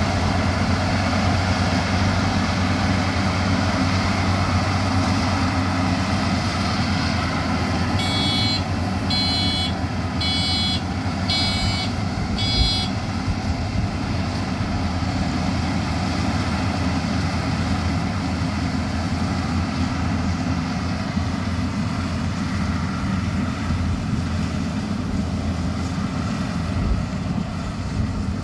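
Maxxi Bimo 102 rice combine harvester running steadily, with a constant engine drone. About eight seconds in, its alarm gives five electronic beeps about a second apart, typical of a reversing warning.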